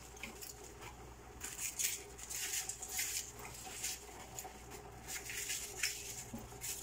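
Fresh cabbage leaves being torn apart by hand: irregular crisp snapping and crackling rustles, a few every second.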